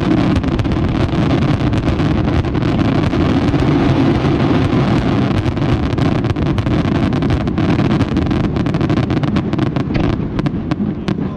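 Fireworks going off in a dense, continuous barrage: many sharp cracks close together over a heavy rumble, easing off near the end.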